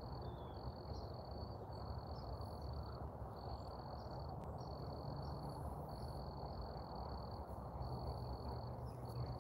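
A cricket trilling at one steady high pitch, in trills of about a second with short breaks between them, over a steady low rumble.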